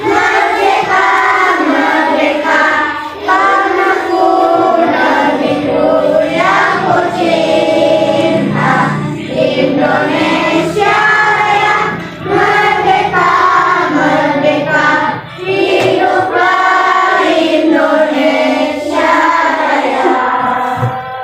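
A group of children singing a song together in unison, in phrases with short breaks between them.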